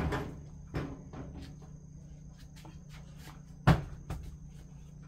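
Heavy split logs being unloaded from a small truck bed and dropped onto concrete: a few dull thuds and knocks, the loudest about three and a half seconds in.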